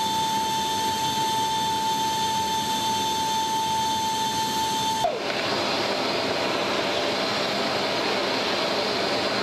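Steady jet engine noise inside a C-17 Globemaster III's cargo hold, with a steady high whine over a constant rush. About five seconds in the whine drops away abruptly and the noise turns brighter and hissier.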